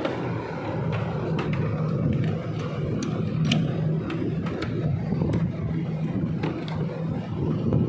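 Electric A/C vacuum pump running steadily, evacuating the van's air-conditioning system after the compressor replacement, with a few scattered light clicks.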